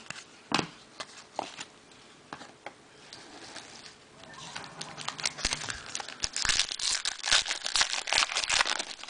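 Foil trading-card pack wrappers crinkling and tearing as packs are opened. Scattered light clicks at first, then dense, louder crinkling from about halfway on.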